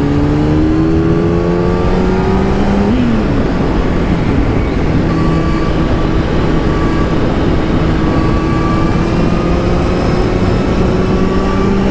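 Kawasaki ZX-10R's inline-four engine under way with the revs climbing slowly through a gear. The revs dip at a gear change about three seconds in, then climb steadily again before another change near the end, over a constant rush of wind.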